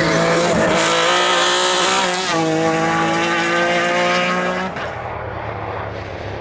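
Touring race car engine running hard at high revs, its pitch stepping once about two seconds in. Near the end it cuts off, leaving a quieter low hum.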